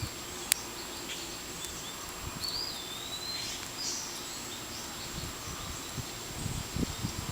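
Lock pick and tension wrench working the pins of a small Brooks padlock, whose inside is gummy: a sharp click about half a second in and soft knocks near the end, over a steady background hiss. A short whistled chirp sounds about two and a half seconds in.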